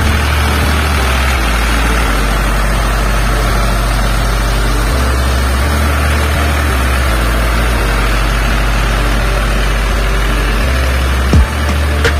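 40 hp diesel tractor engine running steadily under load as it pulls a rotavator through a flooded paddy field, puddling the mud. A couple of short knocks come near the end.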